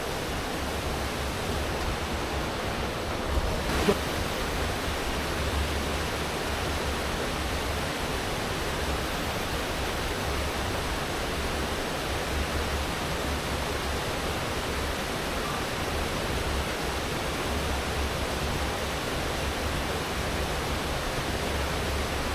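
Steady rush of fast-flowing river water and falls, an even hiss and roar that barely changes.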